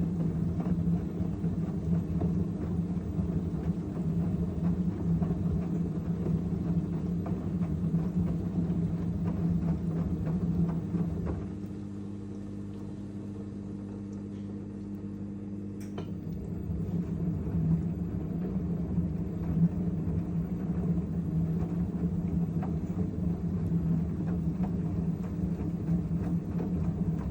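LG F1222TD washing machine drum turning with a loud, rough rumble from worn-out drum bearings. The rumble drops away for about five seconds a little under halfway through, then builds back up.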